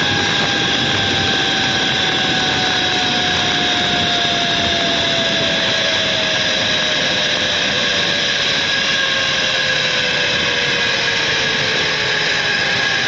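Zip-line trolley pulleys running fast along a steel cable: a loud steady rushing hiss with a whine that slowly falls in pitch as the trolley slows.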